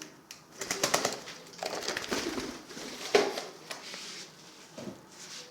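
Pigeons cooing, mixed with louder noisy bursts about one and three seconds in.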